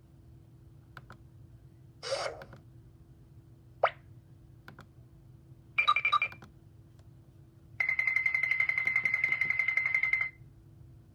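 A string of separate cartoon sound effects: a short swishy burst, a single sharp pop, a brief ringing sound, then about two and a half seconds of rapid, steady bell-like ringing like an alarm clock.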